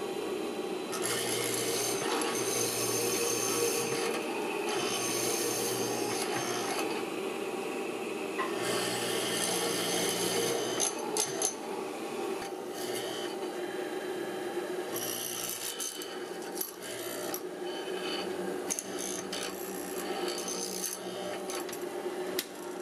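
Hollow chisel mortiser running steadily, with repeated bursts of cutting noise, a second or two each, as the square chisel and auger are plunged into a walnut stool leg to cut a mortise.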